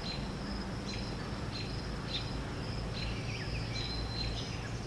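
Outdoor ambience: scattered short, high chirps from small birds and insects over a low, steady rumble.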